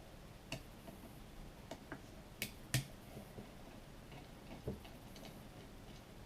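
Scattered sharp clicks and taps of a hand tool working at the crankcase screws of a small two-stroke bicycle engine, some of them stripped at the head. The loudest two clicks come close together about two and a half seconds in.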